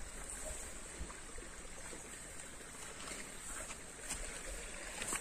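Faint, steady outdoor background: a low even hiss with a thin high steady band over it, broken by a few faint ticks.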